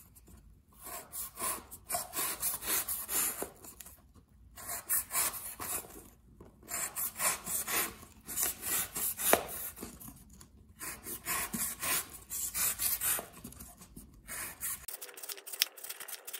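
Blade of a Lion Tools 9483 folding pocket knife slicing strips off a piece of cardboard: runs of short rasping cuts, several per second, broken by brief pauses between strips.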